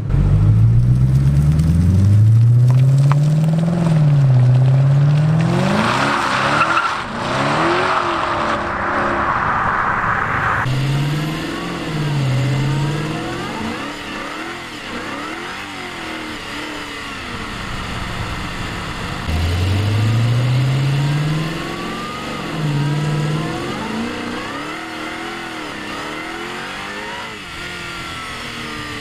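2011 FPV Falcon GS's supercharged 5-litre V8, through its X-Force exhaust, pulling away hard: the engine note rises and drops again and again through the gear changes. It is loudest in the first ten seconds, with a burst of hiss in the middle, then quieter as the car gets further off.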